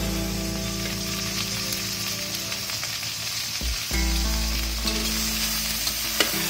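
Sliced okra frying in hot oil in a metal pan: a steady sizzle, with a spatula stirring the pieces and a sharp click of metal on the pan near the end.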